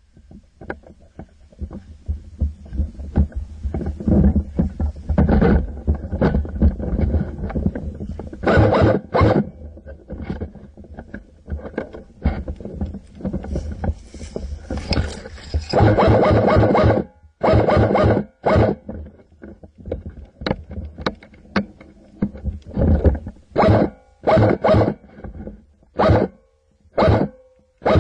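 Scraping, rustling and irregular knocks from handling noise on a rifle-mounted camera as the player moves, with denser clusters of clicks about a third and halfway through, and separate sharp knocks near the end.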